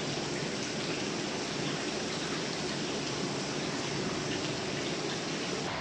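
Water running steadily into open-air baths: a continuous splashing rush with no pauses.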